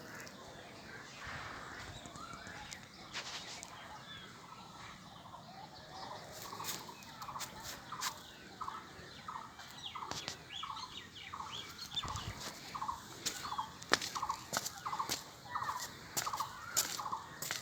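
Domestic fowl calling: a steady series of short, warbling calls, about one and a half a second, starting about six seconds in, with scattered sharp clicks.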